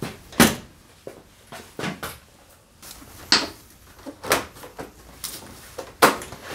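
Plastic body cowl of a Daelim Citi Best motorcycle being pulled and worked loose by hand: several sharp plastic knocks and clacks, the loudest near the start and near the end.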